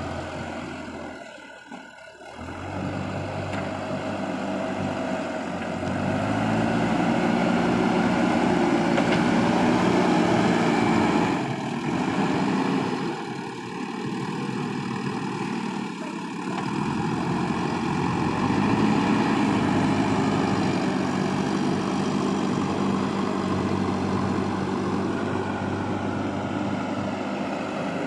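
JCB backhoe loader's diesel engine working a front loader bucket through soil, its revs rising for several seconds at a time and easing back between, with a brief lull about two seconds in.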